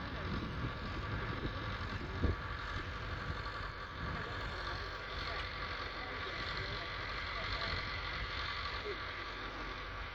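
Case 4210 tractor's four-cylinder diesel engine running steadily, with a single short knock about two seconds in.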